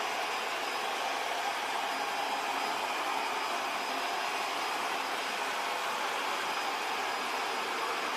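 Vacuum cleaner running steadily: an even rush of motor and fan noise with a faint high whine.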